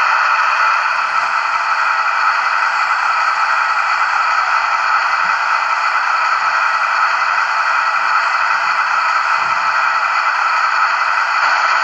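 Sound decoder of a Märklin H0 BR 218 model diesel locomotive playing its diesel engine sound steadily from the loco's loudspeaker while the engine stands still.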